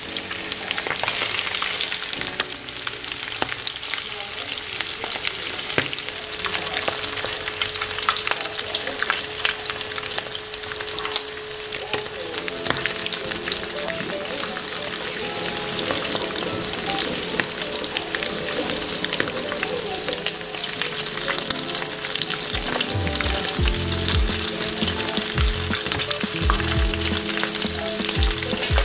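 Flour-coated chicken pieces shallow-frying in hot oil in a pan: a steady, dense sizzle and crackle of spitting oil.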